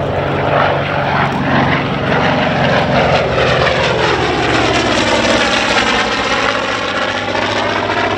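Douglas EA-1E Skyraider's 18-cylinder Wright R-3350 radial engine and propeller running at high power in a fly-by. The note drops in pitch as the aircraft passes, followed by a swirling, phasing sweep in the sound.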